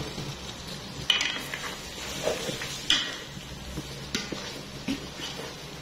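A spoon stirring meat curry in a metal cooking pot, with a few sharper scrapes and knocks against the pot's side.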